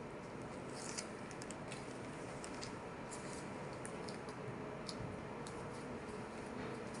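Faint scattered light ticks and soft rustles, typical of taping a needle down, over a steady background hum.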